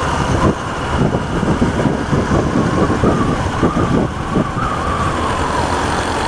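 Motorcycle running along a city street, a steady engine rumble with road noise. Around the middle, a faint high tone rises slightly and falls back.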